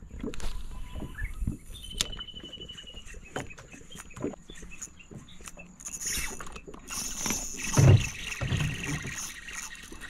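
Fishing reel being cranked, its gears clicking and whirring as line is wound in, with small handling clicks throughout and a heavy thump about eight seconds in.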